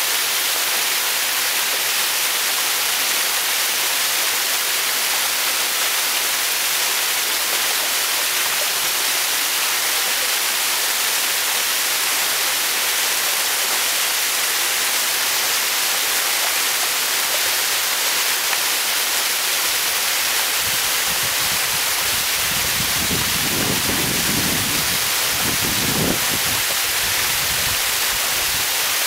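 Small waterfall pouring into a rocky brook pool: a loud, steady rush and hiss of falling water. A low rumbling joins in for a few seconds near the end.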